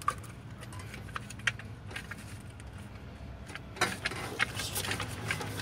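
Scattered clicks and light knocks of a plastic HEI distributor cap, with its ignition coil mounted in it, being handled and turned over. There are a few louder clicks about four seconds in, over a steady low hum.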